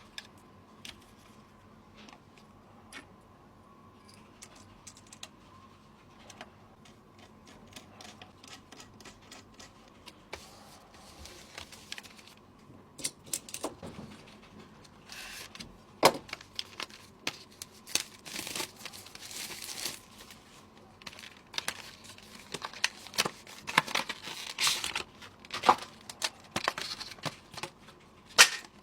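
Hands handling small hard parts and packaging: scattered clicks and taps, then busier rustling and crinkling of plastic wrap from about halfway on, with a few sharper knocks.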